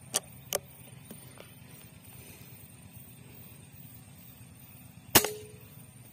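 An air rifle shot: one loud sharp crack about five seconds in, with a short ringing tone and a quick fade. Two fainter sharp clicks come near the start.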